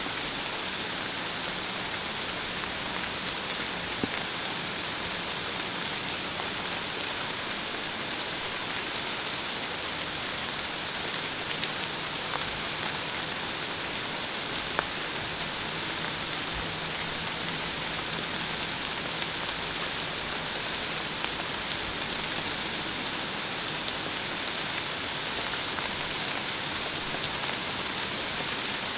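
Steady rain-like hiss with scattered light ticks and a faint high band running through it.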